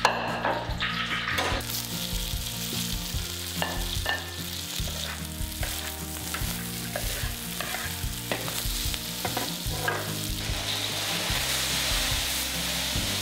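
Eggplant strips and diced salted fish stir-frying in a hot wok: a steady sizzle with frequent scraping clicks as they are stirred. There is one sharp knock right at the start.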